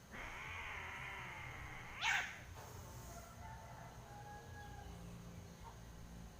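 Domestic cats caterwauling in a standoff: a long wavering yowl for about two seconds, then a short, sharp, rising screech that is the loudest moment, followed by fainter drawn-out calls.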